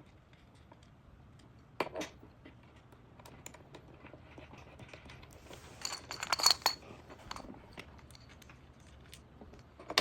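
Metal parts and hardware of a creeper being handled during assembly: scattered small clicks and knocks, a pair about two seconds in and a louder clatter around six seconds in with a brief metallic ring.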